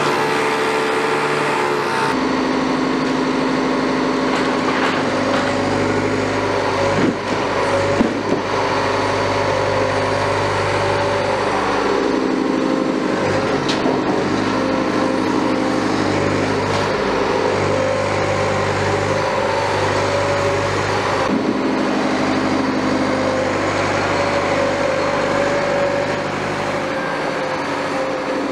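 Liebherr 924 wheeled excavator's diesel engine running steadily under hydraulic load while it works its grapple, its tone changing every few seconds. A couple of sharp knocks come about seven and eight seconds in.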